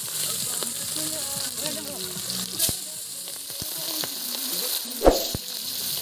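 Food frying in hot oil, a steady sizzling hiss, with a sharp knock about five seconds in.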